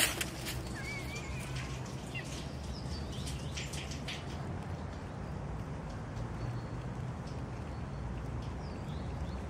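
Outdoor ambience: a steady low rumble with a few small bird chirps and some soft clicks and rustles.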